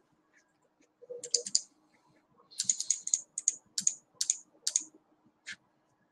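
Computer keyboard and mouse clicks: two quick runs of key taps, then single clicks about every half second as the slideshow is navigated.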